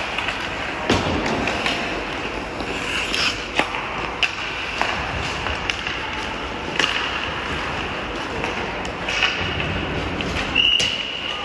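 Ice hockey play in an echoing rink: skate blades scraping the ice, with scattered sharp clacks of sticks and puck. A short steady whistle sounds near the end.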